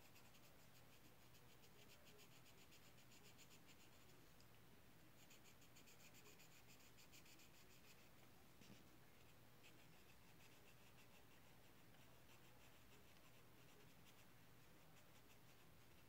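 Faint, rapid scratching of coloring strokes on paper as a letter is filled in red, in short runs with two brief pauses.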